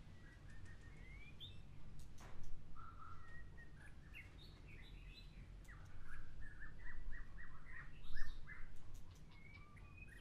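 Pet birds in the house chirping and calling, with scattered notes at first and then a quick run of chirps from about six to nine seconds in.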